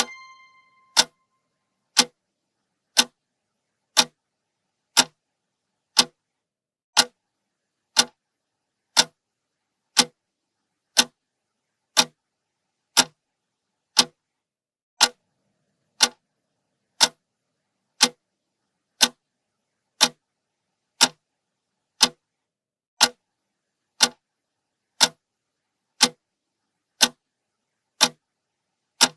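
Countdown timer's clock-style ticking: one sharp tick every second, steady and even.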